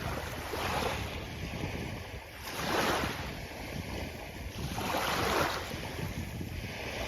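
Sea waves breaking and washing up a beach, with swells of surf about three seconds and five seconds in. Wind buffets the microphone underneath as a low rumble.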